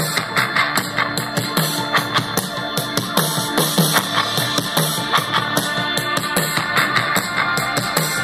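Rock song with drums and guitar played through a Klip Xtreme Nitro, a small 6 W Bluetooth speaker with a passive radiator, with a steady beat and thin deep bass.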